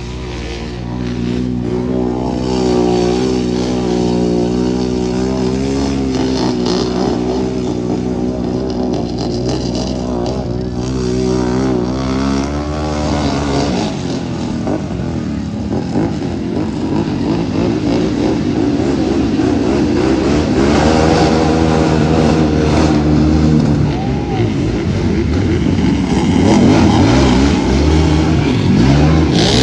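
Off-road vehicle engine running hard. It holds a fairly steady pitch for the first dozen or so seconds, then revs up and down repeatedly, with a steadier stretch in between.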